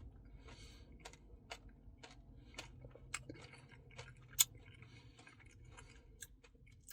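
Quiet eating sounds: soft chewing and scattered wet mouth clicks from someone eating a Dairy Queen Blizzard, with one sharper click about four and a half seconds in.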